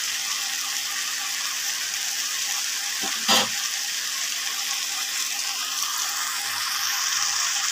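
Onion scapes, eggplant and potato frying in oil in an open nonstick pan: a steady sizzling hiss, with a short knock about three seconds in and a faint steady hum underneath.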